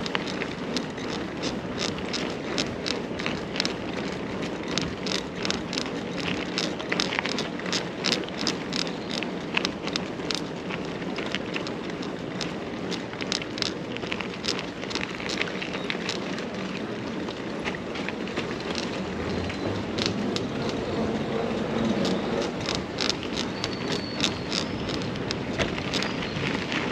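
Mountain bike being ridden: steady tyre and wind noise, with frequent irregular rattling clicks from the bike.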